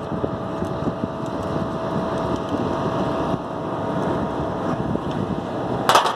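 Wind buffeting an outdoor phone microphone, with faint handling clicks and a steady faint hum underneath; a short loud rustle about six seconds in.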